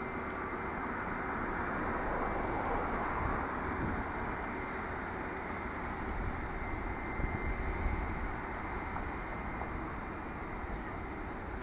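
Steady jet noise from a Boeing 787-9 airliner on the apron during pushback, with a faint steady whine and gusty wind rumble on the microphone.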